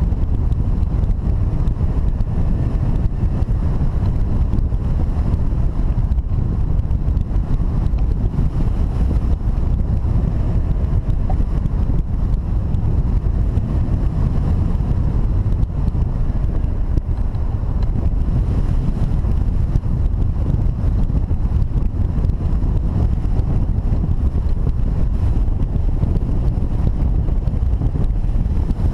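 Rushing airflow of a hang glider in flight hitting the glider-mounted camera's microphone: a steady, loud, low wind rumble.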